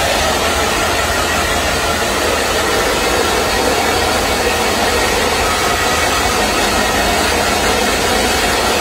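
Handheld electric hair dryer running steadily, blowing air onto a baby monkey's wet fur.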